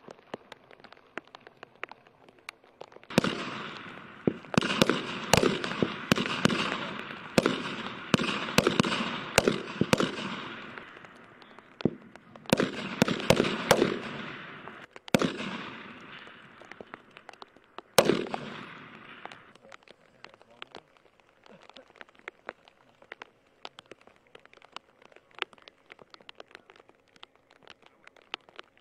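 Several M4 carbines firing semi-automatic single shots from a prone firing line during a zeroing relay: a fast, irregular, overlapping string of sharp cracks with echo, starting about three seconds in and ending with one loud shot about eighteen seconds in. Fainter, scattered shots follow.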